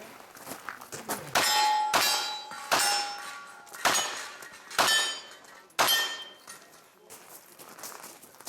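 About six sharp shots or strikes on steel targets, the first few followed by ringing that fades over about a second.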